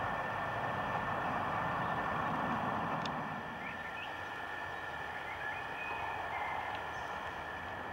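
A few faint, short bird chirps over a steady rushing background noise, with a thin steady high tone underneath.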